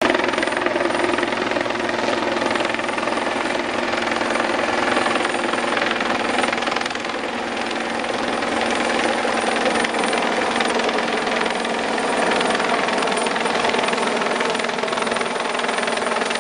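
A helicopter in flight: its main rotor beats rapidly and steadily, with steady engine and gearbox tones running underneath.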